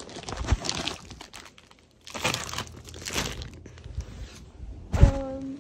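Plastic packaging crinkling and rustling in irregular bursts as it is handled. Near the end comes a sharp knock, followed by a short steady tone.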